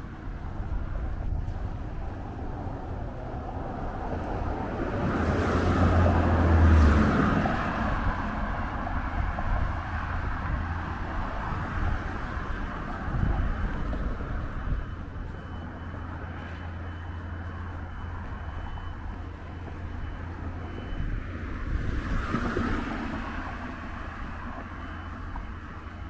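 Street traffic: a steady low rumble of passing cars. One vehicle passes close about six seconds in, the loudest moment, its pitch dropping as it goes by. Another passes near the end.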